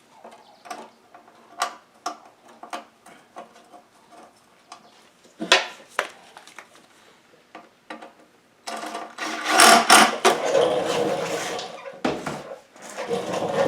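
Light clicks and taps of small metal parts being handled and worked on a lawn mower engine, then from about nine seconds a louder, continuous scraping and rustling handling noise.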